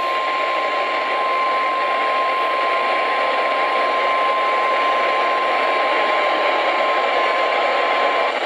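NOAA Weather Radio warning alarm tone: a single steady 1050 Hz beep held for about eight seconds over radio static, then cutting off abruptly near the end. It is the attention signal that comes before a warning message is read.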